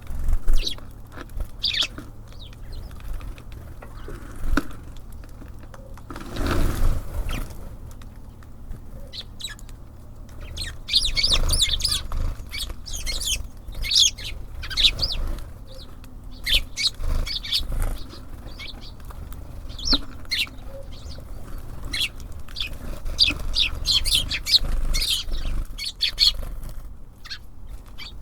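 Small songbirds at a bird feeder chirping in many short, high calls, with wings flapping and bumps as birds land and take off, over a steady low hum.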